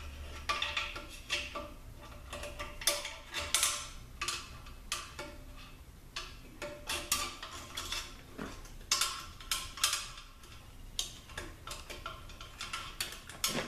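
Irregular metallic clicks and clinks, with short ringing, from a screwdriver prying at a steel snap ring inside a 42RLE automatic transmission case.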